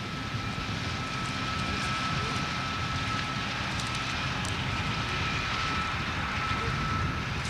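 John Deere combine running steadily while harvesting soybeans as it passes close by: a constant engine and machinery drone with a low rumble and a thin steady whine above it.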